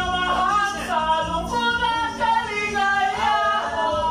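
Karaoke singing: a voice sung into a microphone over a karaoke backing track, played through the PA speaker.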